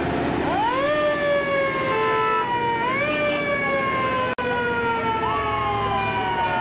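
Emergency vehicle siren in a passing parade: it winds up quickly, then falls slowly in pitch, three times, over a low vehicle rumble. The sound drops out for a moment about four seconds in.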